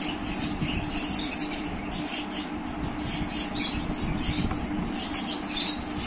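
Pencil sketching on paper: quick, irregular scratchy strokes, over a steady low hum.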